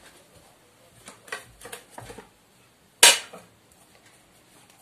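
Kitchen dishes and utensils being handled: a few light clicks, then one sharp clack about three seconds in, the loudest sound.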